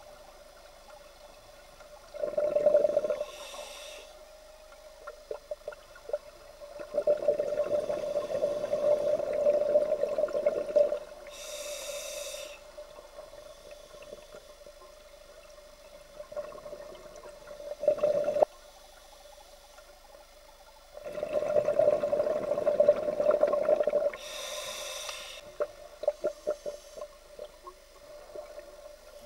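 Scuba diver breathing through a regulator underwater: long breaths out that break into bubbling, each followed by a short hiss of the breath in, about three full breaths. A faint steady hum runs underneath.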